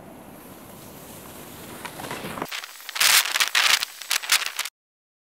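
Faint steady outdoor noise, then from about three seconds in a run of loud, irregular crunching and rustling close to the microphone, like snow being trodden or brushed, before the sound cuts off abruptly.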